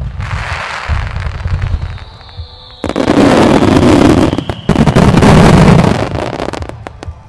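Fireworks finale barrage: a dense run of launches and shell bursts starts at once, then swells into two very loud stretches of bursts about three and five seconds in, each lasting more than a second, before dying away near the end.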